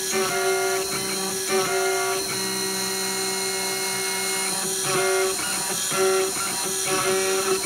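Guitar music playing, with a melody of sustained plucked notes.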